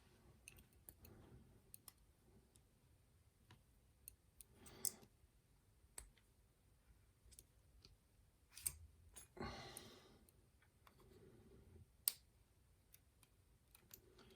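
Faint, scattered small clicks with a couple of soft rustles, from a disassembled lock's driver pins and springs being handled.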